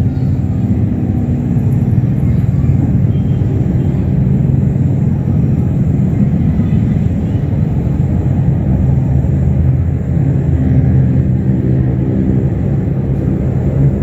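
A steady low rumble that runs without a break.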